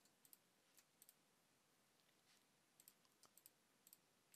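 Faint clicks of a computer mouse, about a dozen scattered through, several in quick pairs, over near-silent room tone.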